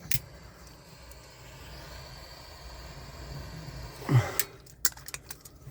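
Small tools and wires being handled during soldering, giving a faint steady hiss and then, after a short low sound falling in pitch about four seconds in, a few light clicks and clinks.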